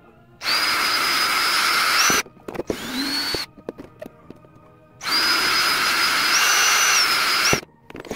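Electric drill whining as it bores holes through a thin clear plastic bin lid, in three runs: a long one, a short one in which the motor spins up, and a longer one.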